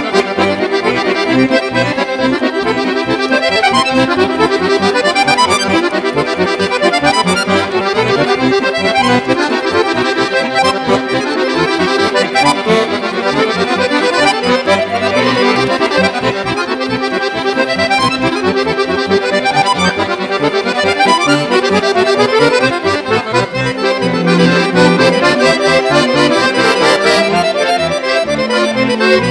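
Two chromatic button accordions playing a Serbian folk-style accordion piece in quick running melodic lines, backed by a string quartet of violins, viola and cello.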